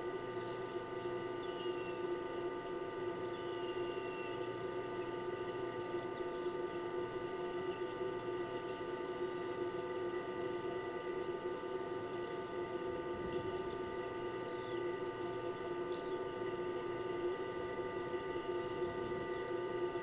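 Steady hum of several constant tones, with faint quick high ticks or chirps scattered through it.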